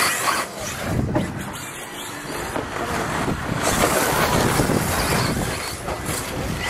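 Radio-controlled off-road racing trucks running on a dirt track: a fluctuating motor and tyre noise that rises and falls as the trucks pass.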